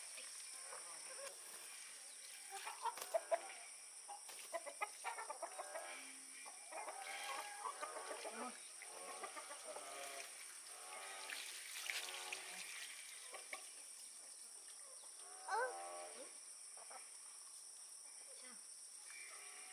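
Chicken clucking and squawking in a string of short calls as it is held to be slaughtered.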